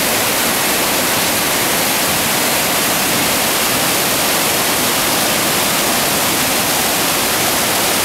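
Düden Waterfall's water rushing over the rocks in a steady, loud, even roar of white water.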